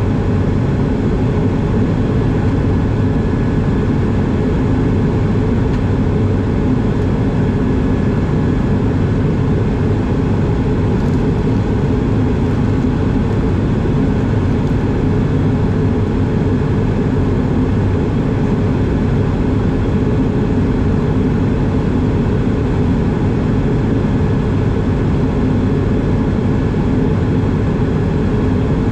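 Steady cabin noise of an Airbus A220 in flight, heard inside the cabin beside the wing: a constant low drone of airflow mixed with the hum of its Pratt & Whitney PW1500G geared turbofan engines.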